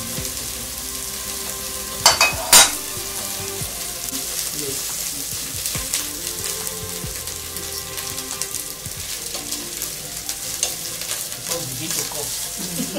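Onions frying in hot oil in a pan: a steady sizzle with small crackles. Two sharp knocks come about two seconds in.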